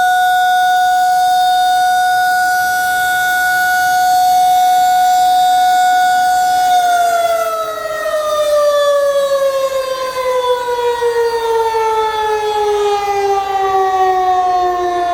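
Federal Signal 2001-SRN electromechanical outdoor warning siren holding its steady alert tone. About seven seconds in it shuts off and the pitch falls steadily as the rotor winds down, marking the end of the one-minute steady alert test.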